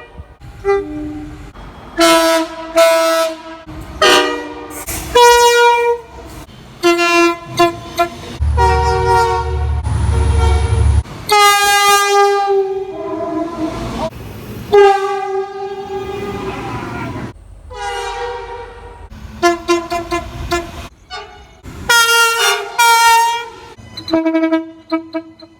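Locomotive air horns sounding a rapid string of short and long blasts, each a chord of several notes, with the pitch shifting from blast to blast. A heavy engine rumble lies under one long blast about a third of the way through.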